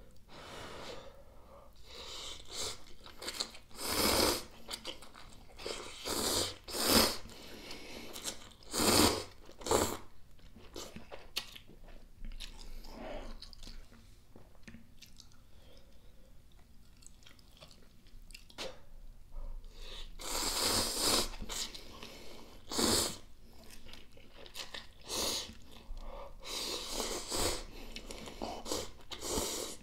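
Hot instant cup-ramen noodles being slurped in repeated short bursts, with chewing in between.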